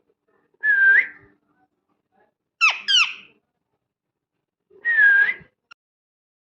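Pet parrot whistling: a short whistle that rises at its end, then two quick falling chirps in a row, then another short whistle that dips and rises.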